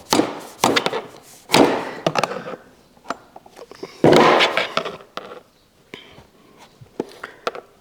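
Parts of a garbage disposal being pushed and worked into place by hand: scattered knocks and clicks, with two scraping rubs about a second long, one about one and a half seconds in and a louder one about four seconds in.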